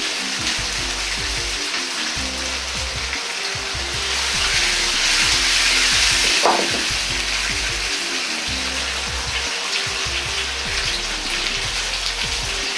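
Sliced pork belly sizzling in a little oil in a wok over low heat. The sizzle swells louder for a few seconds in the middle as the wok is tilted and shaken over the flame.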